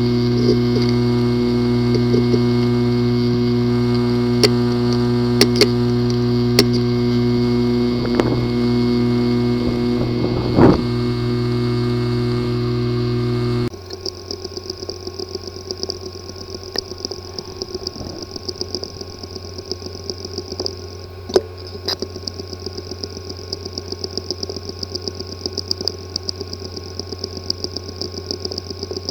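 Laptop hard drive with a physically damaged disk assembly, buzzing steadily with a few sharp clicks. About fourteen seconds in the sound cuts to a quieter high whine with rapid light ticking. These are the clicking and buzzing symptoms of a damaged head/disk assembly.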